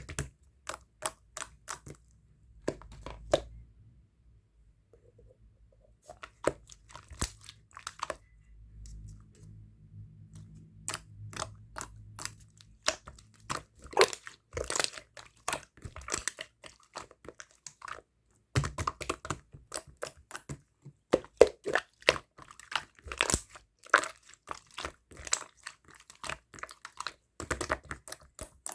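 Slime being squished, pressed and stretched by hand while being mixed. It gives irregular sticky clicks and crackles, with a couple of quieter pauses in the first third.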